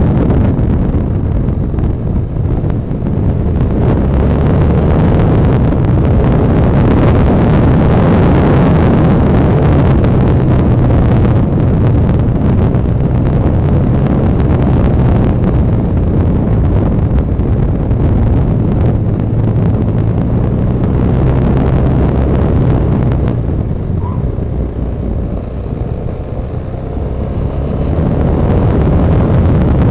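Honda Dominator NX650's air-cooled single-cylinder four-stroke engine running under way through bends, with wind over the microphone. The engine sound drops for a few seconds near the end and then picks up again.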